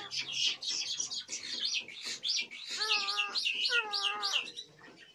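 Captive starlings chirping in a fast run of sharp, high chirps, with two wavering, lower calls about three and four seconds in, dying away near the end.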